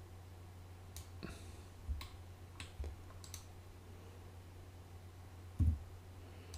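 A few scattered, sharp clicks of a computer mouse and keyboard over a steady low electrical hum, with a soft low thump near the end.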